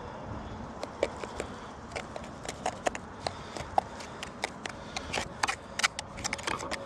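Irregular knocks, clicks and scuffs of a roofer's boots and gear on the ladder and roof, coming thicker near the end.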